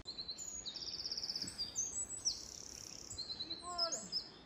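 Woodland birds singing: a string of high chirps and whistles with a quick trill about a second in, and a few lower falling notes near the end.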